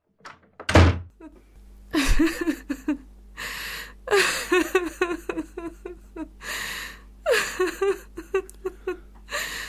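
A thump about a second in, then a woman sobbing: short broken bouts of crying with gasping breaths drawn in between.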